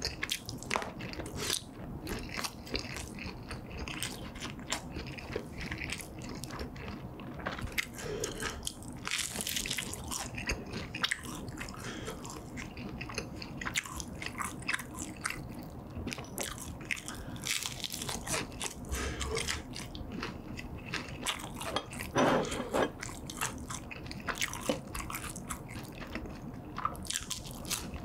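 Close-miked biting and chewing of crispy fried snacks: repeated crunches and crackles with wet chewing between them, and one louder bite about two-thirds of the way through.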